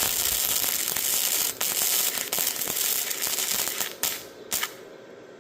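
Wire-feed welder's arc crackling steadily as a butt-weld bead is laid. It drops out briefly once, cuts off about four seconds in, and then gives one short restrike.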